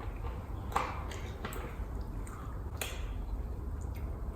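Close-up eating sounds: chewing with a few wet mouth clicks and smacks spread through, over a low steady room hum.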